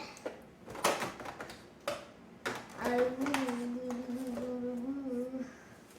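A few sharp knocks and clicks of things being handled, then a child humming one held, slightly wavering note for about three seconds.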